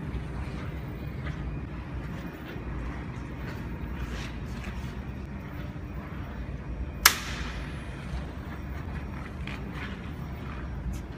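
One sharp click about seven seconds in, from a power plug being worked at a wall socket, over a steady low hum.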